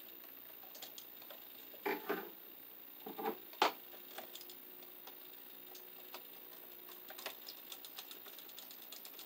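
Hands working copper wires onto a wall outlet's terminal screws: scattered small clicks and taps of wire and metal, a couple of short rustling scrapes about two and three seconds in, and one sharp click just after.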